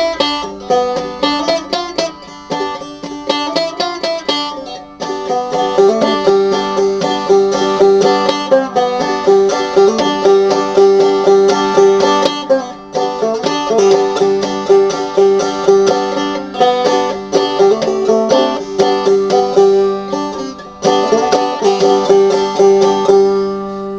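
Five-string banjo played clawhammer (frailing) style at a slow tempo: a steady run of plucked notes over a ringing high drone note.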